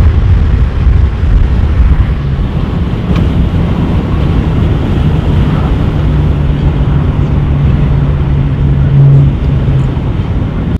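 BMW E46 M3's S54 straight-six running with an aftermarket muffler while driving: a steady low exhaust drone over heavy wind and road rumble, the drone swelling briefly about nine seconds in.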